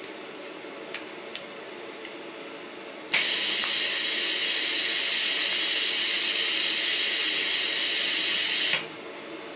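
TIG welding arc making a spot weld on overlapping sheet-metal plates, the torch cup pressed on the metal at about 80 amps: a steady hiss that starts suddenly about three seconds in, holds for about five and a half seconds and cuts off sharply when the trigger is released.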